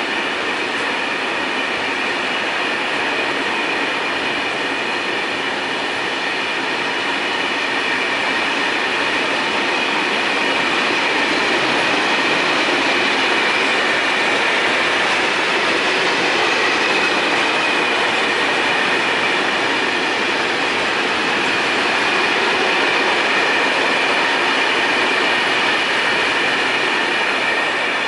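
Freight wagons loaded with logs rolling past at speed, a steady rolling noise of wheels on rail with high-pitched ringing tones over it. It starts to fade near the end as the last wagon goes by.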